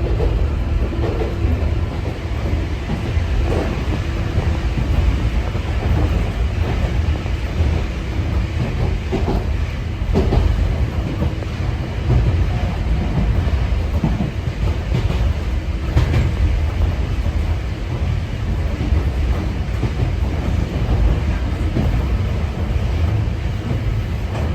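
Sangi Railway 801 series electric train, a former Seibu 701 series, running along the line as heard from inside the car: a steady low rumble of wheels on rail, with an occasional knock as the wheels pass rail joints.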